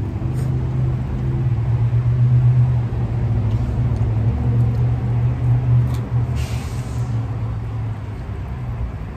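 A motor vehicle engine runs close by with a steady low hum. A short hiss comes about six and a half seconds in, and the hum eases off near the end.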